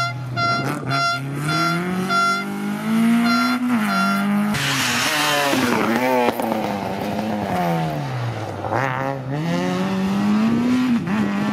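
Rally car engines revving hard under acceleration, the pitch climbing and dropping sharply at each gear change, with a loud rush as a car passes close about five seconds in. A run of short repeated high beeps sounds over the engines in the first few seconds.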